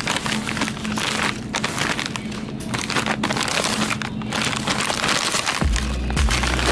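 Plastic frozen-food pouches crinkling as they are handled, over background music. A heavy bass beat comes in near the end.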